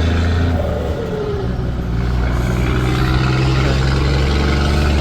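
Scania Series 4 truck's diesel engine running under way with a deep, steady drone. The level dips briefly about a second in, then the note picks up and climbs slowly.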